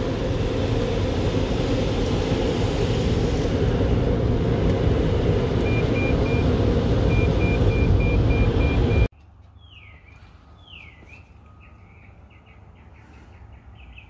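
Automatic car wash running around the car, heard from inside the cabin: a loud, steady rush of water spray and machinery, with a run of quick electronic beeps partway through. About two-thirds of the way in it cuts off suddenly to a much quieter stretch of faint, bird-like chirps and a short trill.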